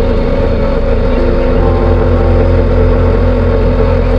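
Motorboat engine running steadily with a loud low drone; its note shifts slightly about a second and a half in.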